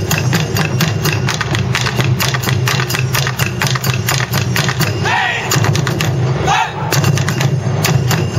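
Ensemble of taiko barrel drums beaten in a fast, steady rhythm, with a small pair of hand cymbals (chappa) clashing along. Performers' shouts (kakegoe) ring out twice, about five and six and a half seconds in.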